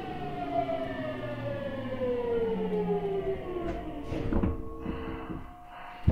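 Hitachi GTO-VVVF inverter of a Seibu 6000 series train, heard from inside the carriage, whining in several tones that fall steadily in pitch as the train slows. The whine fades out about four seconds in, followed by a few low knocks and a steady hum.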